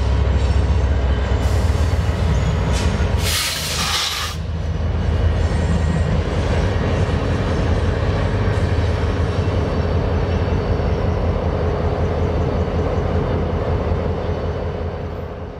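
BNSF diesel-electric freight locomotives rolling past under load: a deep, steady engine rumble mixed with rail and wheel noise. A brief loud hiss comes about three seconds in, and the sound fades out near the end.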